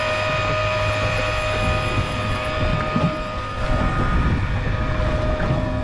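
Steady mechanical whine over a low rumble from a sport-fishing boat's machinery, with wind gusting on the microphone that grows stronger about two seconds in.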